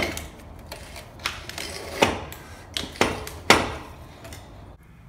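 Irregular sharp clacks and knocks as a trolling motor's shaft is pushed through and seated in its white plastic trim housing, about six strikes, the loudest a little past the middle and near the end.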